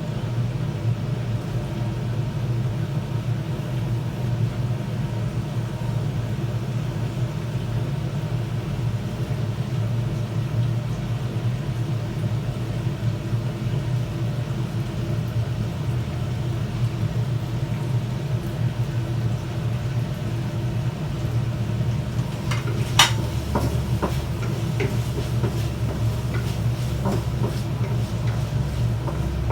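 Pork cubes sizzling as they fry in a pan, over a steady low hum. A utensil clinks sharply against the pan once, near the end, followed by a few lighter knocks.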